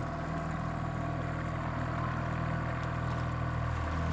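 Outboard motor running steadily at trolling speed, an even, unchanging engine note.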